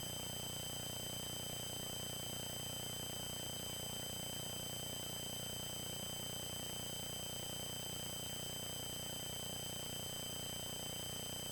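Steady electronic hum and high whine from a faulty camera: a constant high tone with a stack of fainter higher tones over a low hum, unchanging throughout.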